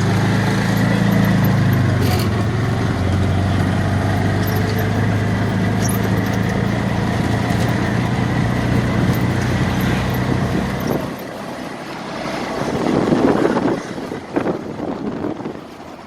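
A motor engine running steadily with a low hum, dropping away about eleven seconds in, followed by a louder rush of noise near the end.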